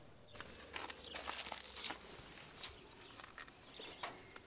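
Faint rustling and crackling, densest for about the first two seconds, then a few scattered crackles.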